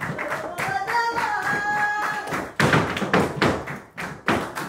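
Flamenco footwork (zapateado): rapid, uneven heel stamps and toe taps on the stage floor, strongest in a burst just past halfway. About half a second in, a voice holds a note for under two seconds over the stamping.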